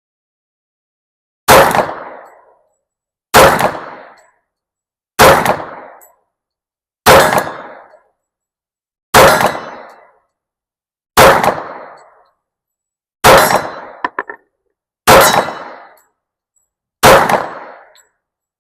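Glock 30SF pistol firing .45 ACP rounds at slow, deliberate pace: nine shots about two seconds apart, each a sharp report followed by a short echo.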